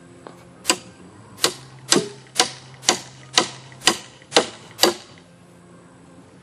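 Hammer driving a 6-inch nail into a wooden pole frame: nine sharp strikes, about two a second, each with a short ring.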